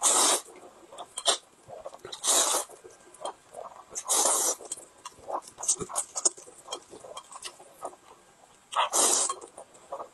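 A man slurping noodles in big mouthfuls: four loud slurps, with quieter chewing and wet mouth smacks between them.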